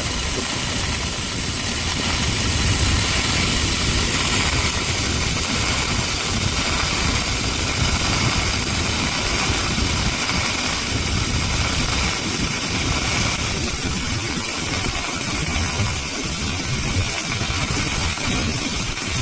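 Welding arc burning steadily through a root pass over ceramic backing: a continuous, even hiss with a low rumble underneath.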